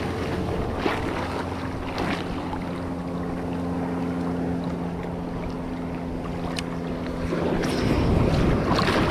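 Ocean surf washing around a wading angler, with a steady low hum under it for most of the time that stops about seven and a half seconds in. Near the end a wave rolls in and the water noise grows louder.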